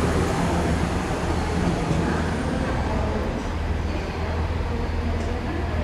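Class 170 Turbostar diesel multiple unit pulling away over the points, its underfloor diesel engines giving a steady low drone that slowly fades as it moves off.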